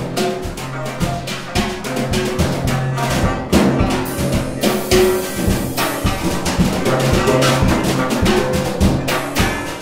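Music with drums and percussion: a busy run of drum hits over held pitched notes.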